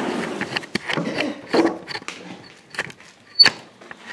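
Handling noise from a camera being carried on foot: fabric brushing over it at first, then scattered footsteps, knocks and clicks, the sharpest knock about three and a half seconds in.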